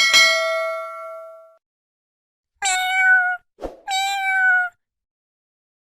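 A metallic ding struck once, ringing out for about a second and a half. Then a cat meows twice, each meow under a second long and nearly level in pitch.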